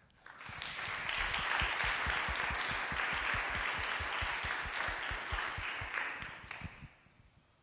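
Audience applauding, building up in the first second and dying away about seven seconds in.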